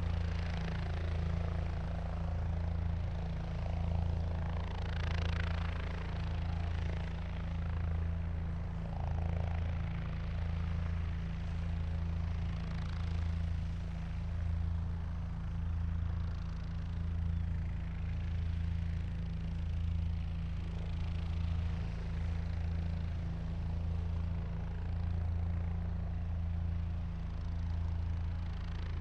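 Helicopter running steadily: a low, even engine and rotor drone whose level swells and fades gently every couple of seconds.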